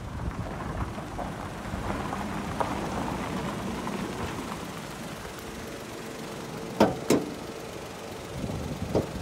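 Toyota Vitz's 1KR three-cylinder petrol engine idling steadily, with two sharp clicks close together about seven seconds in.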